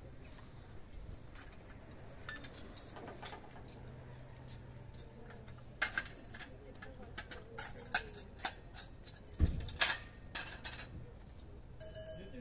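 Small metal and glass trinkets clinking and tapping as they are handled on a table: a scatter of sharp clicks from about six seconds in, the loudest knocks near ten seconds.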